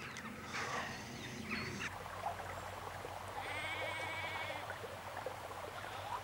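A sheep bleating: one long, quavering bleat about three and a half seconds in, after a couple of seconds of scattered rustling noise.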